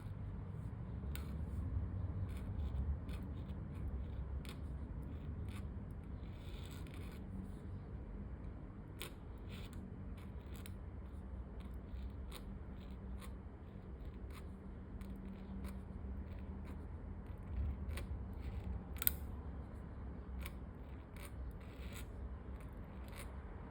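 Scratchy calligraphy pen nib scratching across paper in many short, irregular strokes, with one sharper scratch near the end, over a low steady room hum.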